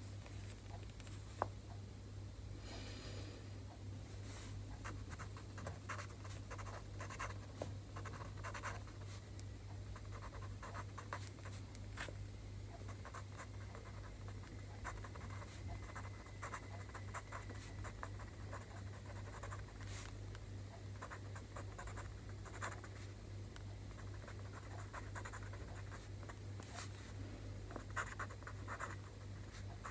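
Pen writing Chinese characters on a sheet of paper: a quick, uneven run of short scratching strokes and light taps of the tip. A steady low hum runs underneath.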